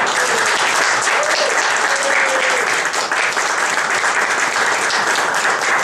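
Audience applauding, many people clapping together; it starts suddenly and holds steady.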